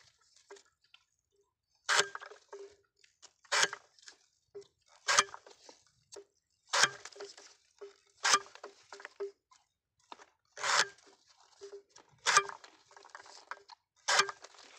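Manual sugarcane bud-sett cutter chopping a cane stalk into single-bud pieces: eight sharp chops, about one every one and a half seconds with a longer pause near the middle, with lighter clicks and knocks of the cane being fed and pieces falling between them.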